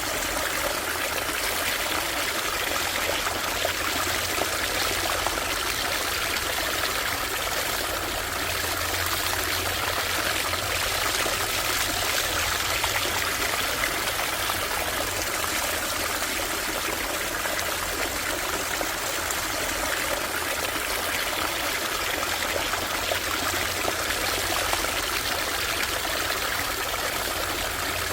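Shallow stream running over stones, a steady burbling trickle with no change.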